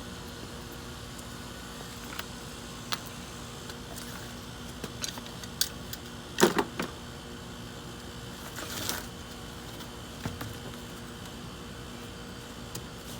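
Car wheel being fitted back onto the hub: scattered metal clicks and knocks, with a louder clatter about six and a half seconds in, a scraping rustle near nine seconds and a thud a second later, over a steady low hum.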